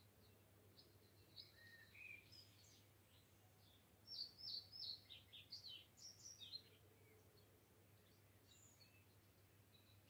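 Faint bird song: scattered high chirps, then a quick run of sharp, falling notes from about four to seven seconds in.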